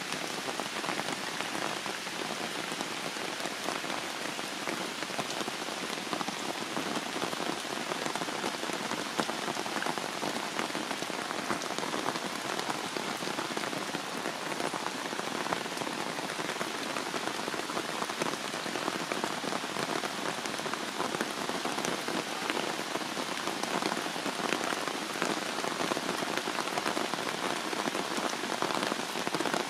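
Heavy rain falling steadily on forest foliage and stone, a dense even hiss of countless drops that does not let up.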